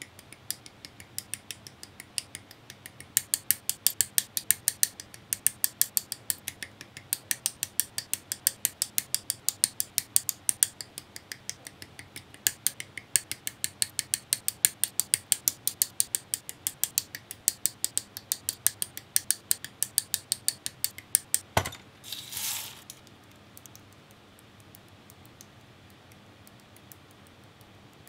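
A hobby tool working a plastic model-kit part on its runner, making a rapid series of sharp clicks, about three or four a second. After about twenty seconds the clicking stops with one louder click and a short scrape.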